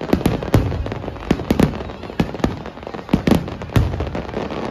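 Fireworks going off: a rapid, irregular series of about ten sharp bangs, each trailing off in a short echo.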